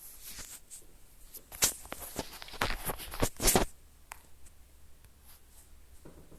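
A quick run of rustling and scraping handling sounds in a small room, several short strokes with the loudest near the middle of the clip, then quiet room noise.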